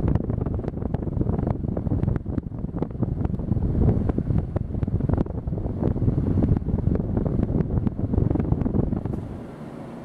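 Casablanca Lady Delta ceiling fan running, its downdraft buffeting the microphone in a loud, gusty rumble with many small crackles. The rumble fades near the end.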